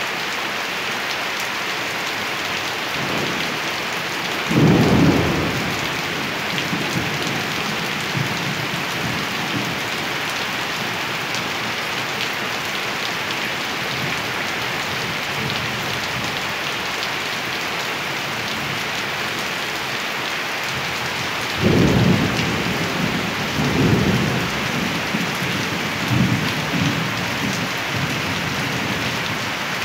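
Steady rain falling, with thunder: a sudden clap about four and a half seconds in, and a longer rumbling roll of thunder starting a little past twenty seconds in and fading in several swells.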